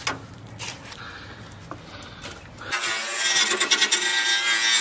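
Faint handling sounds, then a little past halfway a cordless angle grinder with a wire wheel grinding against a rusted steel car quarter panel, stripping body filler and paint with a steady high whine and scraping.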